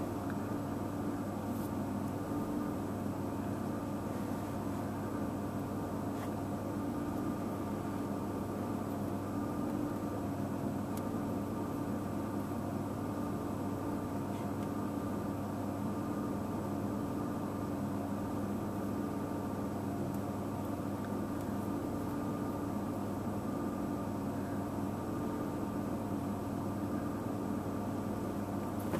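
Steady hum of an idling vehicle engine, an even drone with several constant tones and no change in speed.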